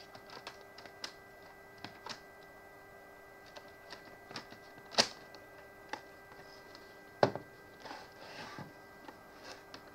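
Plastic clicks and knocks as a removable battery is slotted into an HP 250 G6 laptop and the laptop is handled and turned over, with two sharp clicks about five and seven seconds in.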